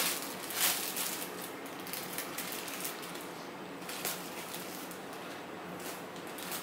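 Scissors snipping through a shot-up paper target figure: irregular sharp snips and clicks with paper crinkling.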